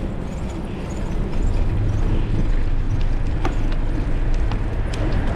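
Wind rumbling on the microphone of a moving bicycle, heavier from about a second in, with scattered light clicks and rattles from the bike.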